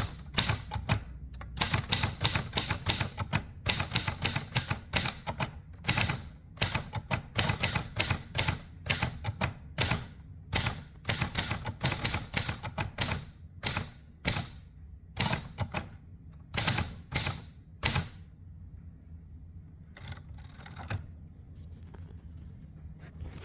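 1929 Continental portable typewriter being typed on: a fast, irregular run of sharp key and typebar strikes that stops about three-quarters of the way through, followed by a couple of softer mechanical sounds.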